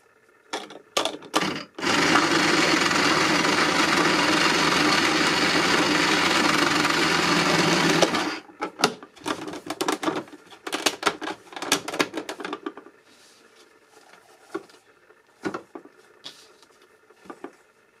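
A small motor in a vintage 1990 Barbie toy washer-dryer runs with a loud steady whir for about six seconds. It starts and stops abruptly, as if switched on and off. Plastic clicks and rattles from the toy's parts and doors being handled come before and after it.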